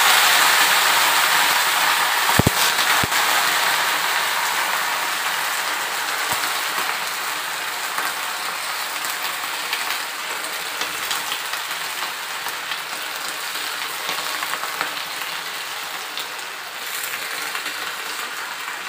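Chopped taro leaves sizzling in hot mustard oil in a kadhai. The hiss is loud at first and dies down steadily as the leaves wilt, with two sharp knocks about two and a half and three seconds in.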